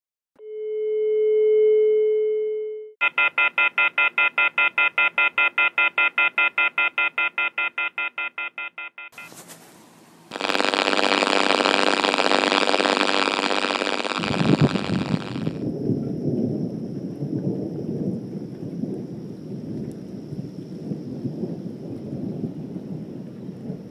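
A single ringing tone swells and fades, then a telephone bell rings in a fast, even pulse for about six seconds and dies away. About ten seconds in a loud hiss with high steady tones starts, and a few seconds later thunder rumbles in over heavy rain.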